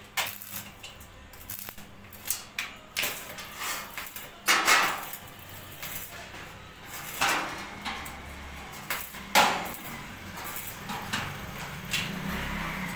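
Stick arc welding on steel flat bars: several short bursts of crackling arc, each half a second or so, the loudest about four and a half and nine seconds in, with sharp clicks and taps of metal between them.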